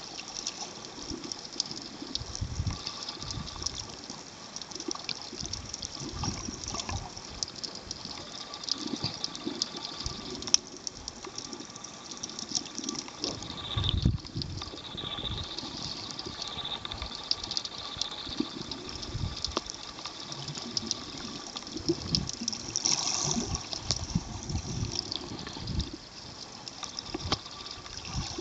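Water heard underwater through a submerged Panasonic FT2 waterproof camera: muffled sloshing and bubbling, with irregular low thumps and a steady crackling hiss. A louder surge comes about halfway through.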